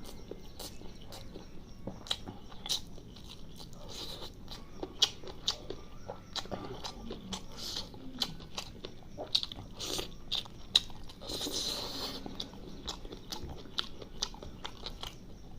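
Close-up eating sounds: wet chewing of curry and rice, with frequent short sharp clicks and smacks of the mouth, irregular and close to the microphone.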